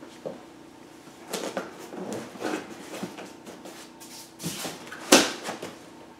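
Large cardboard TV box being slid down over its cardboard base tray: cardboard scraping and rubbing in irregular bursts, with one sharp knock about five seconds in.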